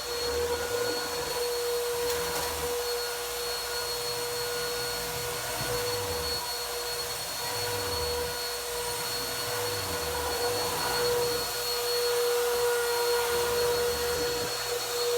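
Vacuum cleaner running with a steady high motor whine over a rushing airflow. Beneath it a low rumble swells and fades every second or two as it works over carpet.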